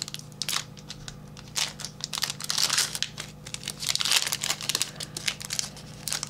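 Trading card packs and cards handled by hand: irregular crinkling and rustling of wrappers and sliding cards, over a faint steady low hum.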